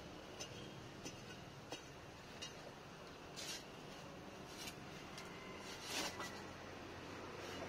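Faint scraping and tapping of hand tools digging into dry, gravelly soil, with a steel digging bar jabbed into the ground. It starts as a few light ticks, then short gritty scrapes follow in the second half.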